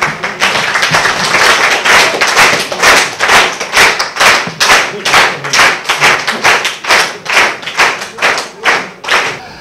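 A group clapping in unison to a steady beat of about two claps a second, with voices in the background.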